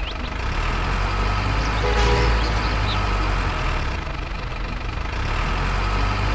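Remote-control model cement mixer truck driving over dirt, its motor running steadily with a low hum. It grows louder about two seconds in, eases off midway and swells again near the end.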